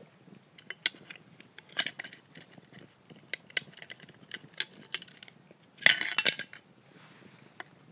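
Knife clicking and scraping against a wooden board as a bread roll is cut open: a run of short sharp ticks and scrapes, with the loudest scrape about six seconds in.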